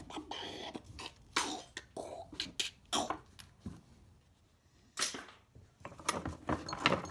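Scattered knocks, clicks and rustles of scrap metal pieces being handled and sorted by hand, with a quieter gap about four seconds in.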